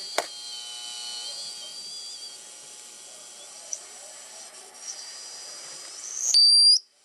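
Homebrew 40-metre (7 MHz) regenerative receiver on its loudspeaker: band hiss with thin whistling tones that drift in pitch, the heterodyne whistles of the oscillating detector beating against signals. A sharp click comes just after the start, and near the end a loud high steady whistle rises and then cuts off suddenly.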